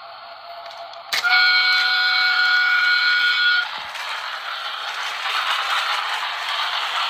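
Plarail EF63 toy locomotive's built-in sound effect: a click about a second in, then an electronic locomotive horn blast from its small speaker lasting about two and a half seconds, followed by a steady rattling running noise.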